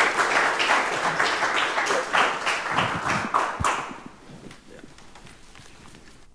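Audience applauding, fading out about four seconds in. A single thump from the speaker's clip-on microphone being handled near the end of the clapping.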